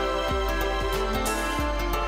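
Background music with a steady beat and held synth notes.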